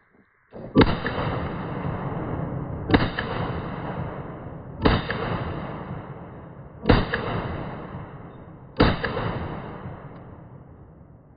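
AR-15 in 5.56 fired five times at an even pace, about two seconds apart, each sharp shot followed by a long echo that fades before the next.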